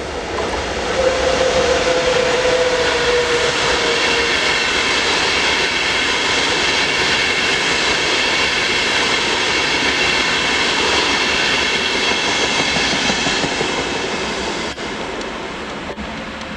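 ÖBB Railjet passenger train running through at speed: the rush of wheels on rail and of the coaches swells about a second in, holds loud and steady, then fades near the end. In the first few seconds a single tone slides slightly lower as the front of the train goes by.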